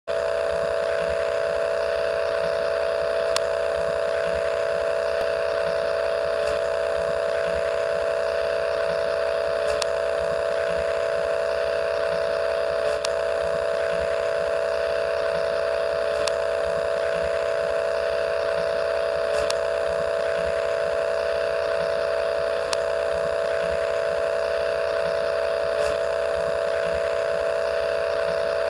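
VHS tape playback sound effect: a steady hum under tape hiss, with a faint click about every three seconds.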